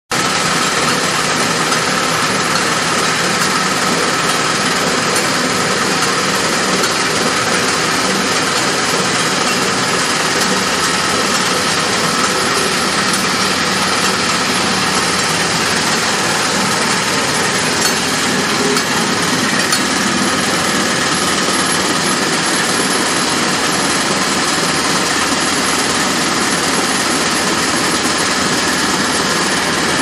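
Vertical sump pump and its belt-driven electric motor running: a loud, steady machinery noise with a faint constant whine.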